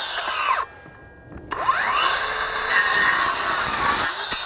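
Kobalt 24-volt cordless 6-1/2-inch circular saw cutting through a wood board. It stops with a quickly falling whine, starts again with a rising whine about a second and a half in and saws through the board, then winds down again near the end. The quick stops fit the saw's electronic brake.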